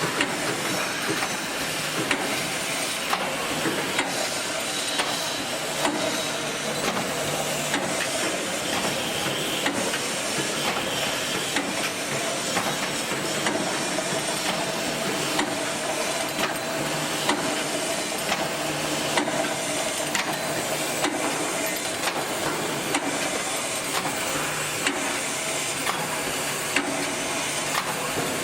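Wire mesh welding machine running steadily with a constant hiss, and a sharp click about once a second in an even rhythm.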